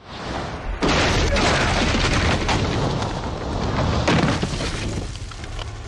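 Film explosion sound effects: a swelling build, then a loud blast about a second in. Two more blasts follow, and the noise eases off near the end.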